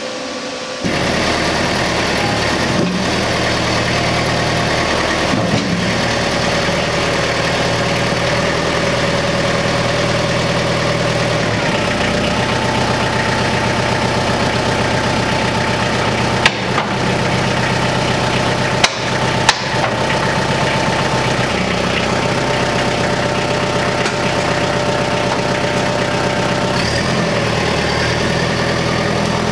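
Skid steer engine idling steadily after coming up sharply about a second in, with a few brief clicks or knocks midway.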